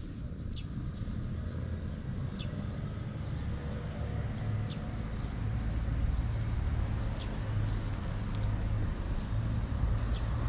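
Brown tabby-and-white cat purring in a low, steady rumble while its head is stroked, with short high bird chirps every second or so.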